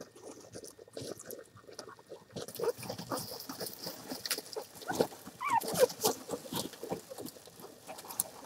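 Two-week-old American Hairless Terrier puppies squeaking and grunting amid rustling straw, with one short falling squeal about five and a half seconds in.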